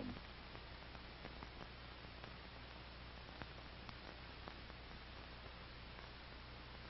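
Faint steady hiss and low hum of an old film soundtrack between narration, with a few scattered faint clicks.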